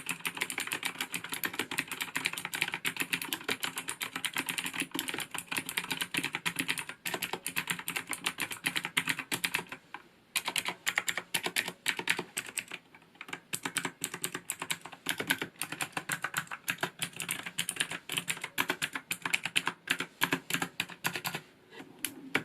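Fast typing on a Skydigital NKEY-K2 mechanical keyboard with Outemu Blue clicky switches: a dense run of sharp key clicks, with a brief pause about ten seconds in. The case rings only a little.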